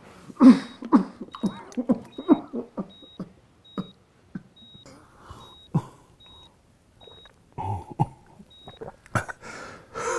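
A seriously ill man in a hospital bed coughing, several harsh coughs in quick succession in the first few seconds, then only quieter scattered sounds.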